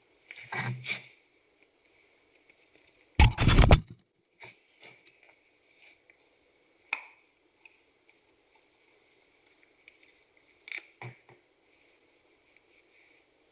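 Tools and metal parts being handled: scattered clicks, knocks and a short scrape, with a dense rattling burst of about half a second some three seconds in, the loudest sound.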